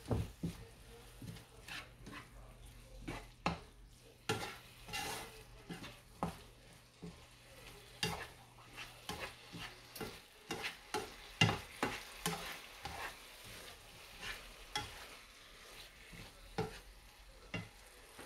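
A plastic slotted turner scrapes and knocks irregularly around a nonstick frying pan while octopus and vegetables sizzle in it. The loudest knock comes about eleven seconds in.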